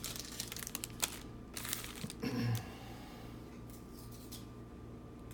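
Chrome-finish trading cards being handled and pulled apart, with scattered light clicks and rustles over the first couple of seconds, then only a faint steady hum.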